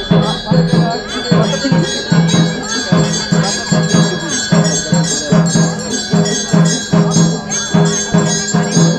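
Devotional temple music from the gathered crowd: a drum beating steadily about two to three times a second, with bells and jingling cymbals ringing over it.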